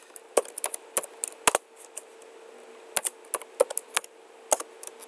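Typing on a computer keyboard: irregular keystroke clicks, a quick run of keys at first, a pause of about a second and a half, then another run of keystrokes.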